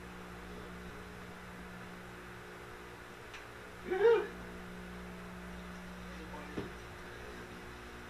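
Microwave oven running with a steady electrical hum while steel wool arcs inside. A short pitched, voice-like sound comes about four seconds in, and a single sharp click a couple of seconds later.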